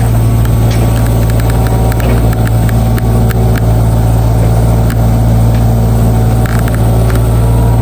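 An engine running steadily at a constant low speed, with scattered light clicks and knocks over it.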